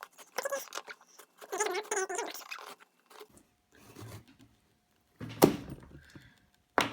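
A heavily taped cardboard box being cut open with a knife, heard fast-forwarded: quick scraping and rustling with short bursts of high-pitched, chipmunk-like chatter from a sped-up voice. Two sharp knocks come a second and a half apart near the end.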